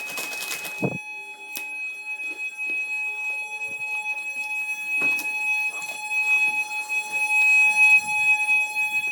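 Fire alarm sounding a loud, steady, unbroken high-pitched tone that grows louder over the last few seconds, with some rustling and a few clicks.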